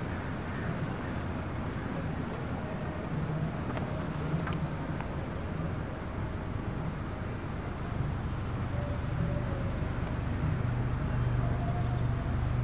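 Road noise of a car running nearby, its low engine hum growing louder in the second half over a steady outdoor rumble.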